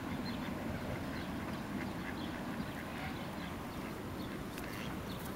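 Ducks quacking now and then over a steady low rumble.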